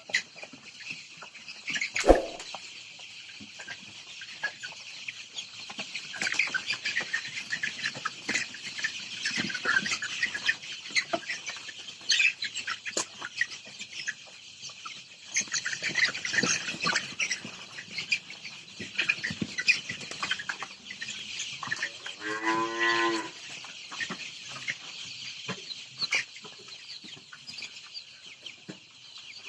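A flock of sonali chickens in a poultry shed keeps up a dense, continuous chorus of high chirps and peeps. There is a sharp knock about two seconds in, and one drawn-out lower call that wavers in pitch at about twenty-two seconds.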